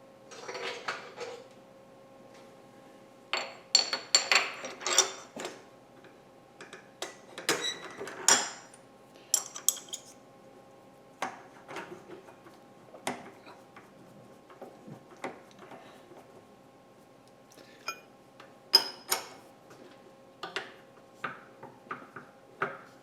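Steel tools and tooling being handled and set down: irregular metallic clinks and knocks, some ringing briefly, over a faint steady hum.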